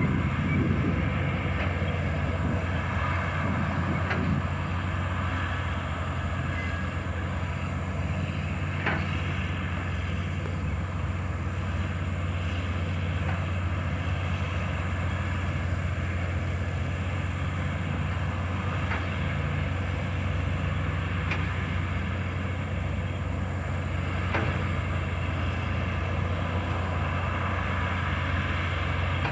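Bulldozer's diesel engine running steadily with a low drone, with a few faint sharp clicks.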